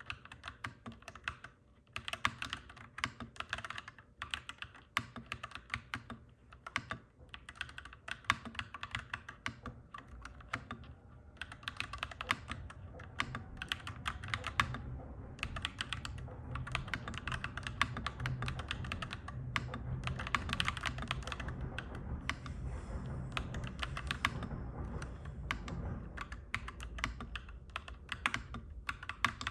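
Clacky mechanical keyboard being typed on in quick runs of keystrokes with brief pauses. A low rumble builds in the background through the middle and fades near the end.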